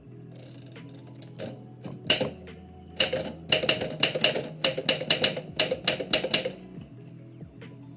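Typewriter keys striking paper as a poem is typed: a few scattered strokes, then a quick run of about four strokes a second for three or four seconds before the typing stops. Faint background music runs underneath.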